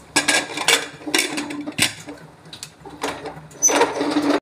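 Pressure cooker lid being fitted and locked shut and its whistle weight pressed on: about six sharp metal clinks and scrapes, with a steady low hum underneath.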